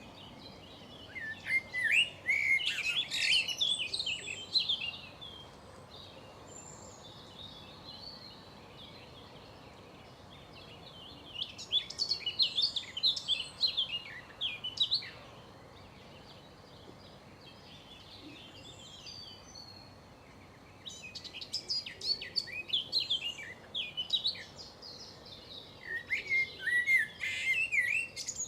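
A songbird singing four phrases of rapid, varied high notes, each a few seconds long with quieter gaps between them.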